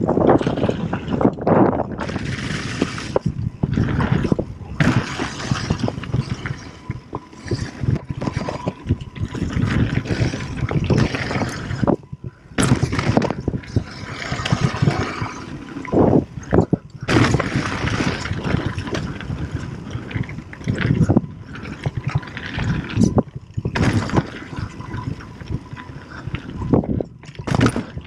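Mountain bike descending a dirt trail at speed: tyres crunching and scraping over dirt and loose stones, the bike rattling over bumps, and wind rushing on the microphone, in uneven surges with a couple of short lulls.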